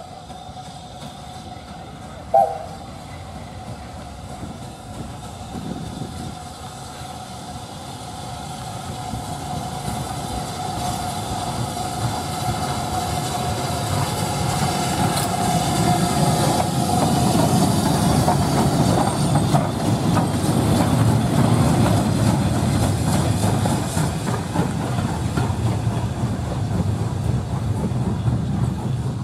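BR Standard Class 5 4-6-0 steam locomotive 73082 running in and passing, its rumble and the rattle of wheels and motion over the rails building to a peak and then easing a little. There is a brief sharp sound about two seconds in.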